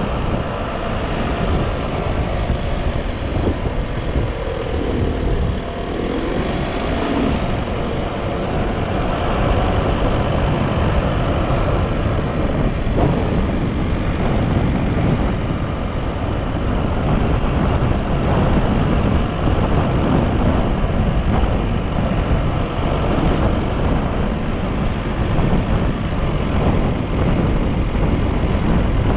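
Road vehicle driving along at speed: a steady mix of engine, tyre and wind rumble, heavy in the low end, with no break or lull.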